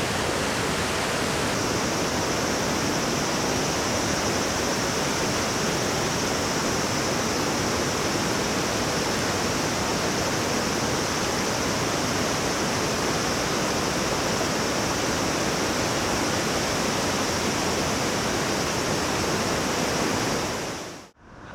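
Mountain stream rushing: a steady, even rush of water that dips out sharply right at the end.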